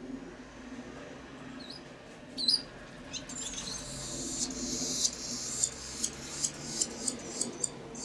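Barn swallows twittering: two short high calls about two seconds in, a denser stretch of chatter from about three to five seconds, then a string of quick sharp chirps toward the end, over a steady low hum.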